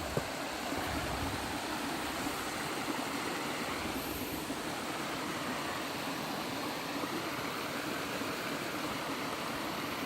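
Steady rush of falling water from a hot-spring waterfall.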